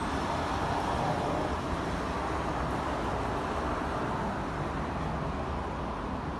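Steady background hum of city street traffic, an even noise with no distinct events.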